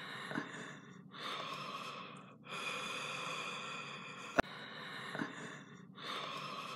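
A person breathing loudly and slowly right against the microphone, in long hissing breaths about a second or two each. A single sharp click sounds about four and a half seconds in.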